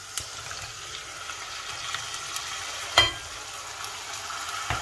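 Olive oil sizzling in a pot as chopped vegetables are tipped in and pushed around with a wooden spatula, with a sharp knock about three seconds in.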